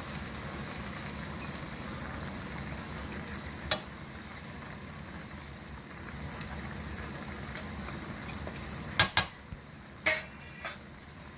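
Pork rib braise simmering in a pan, a steady bubbling hiss. Metal tongs click against the pan once about a third of the way in and a few times in quick succession near the end.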